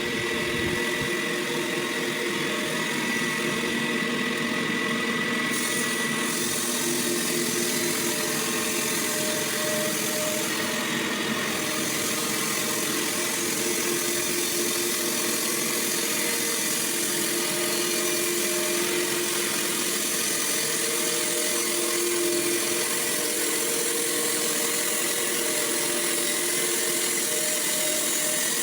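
A sawmill running steadily: a continuous machine drone with several held tones. A higher hiss fills in about five seconds in.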